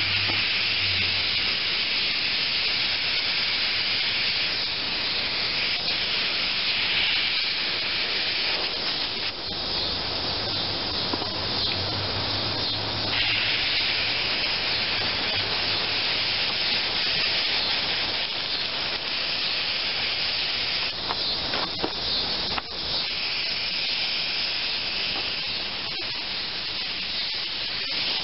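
Aerosol can of spray adhesive hissing in long sprays, with a few brief pauses between them.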